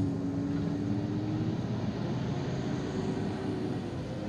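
Heavy trailer truck driving past, a low engine-and-tyre rumble with a steady engine tone, slowly fading as it moves away.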